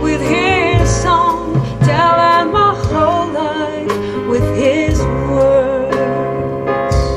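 Recorded jazz-pop ballad played loud through a pair of Magico M6 floor-standing loudspeakers: piano, drums with hi-hat and cymbal taps, and a woman singing with vibrato.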